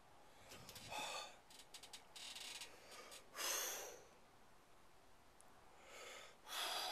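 A man breathing hard and blowing air out through pursed lips after eating a hot chili pepper: four noisy breaths, the loudest about three and a half seconds in.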